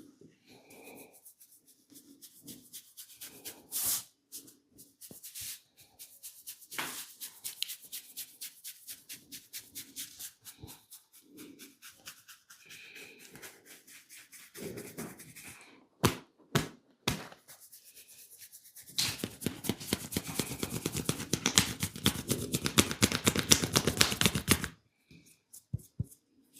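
Hands massaging a person: a run of soft rubbing and slapping strokes, a few sharp snaps about sixteen to seventeen seconds in, then about six seconds of fast, loud, rhythmic hand strokes.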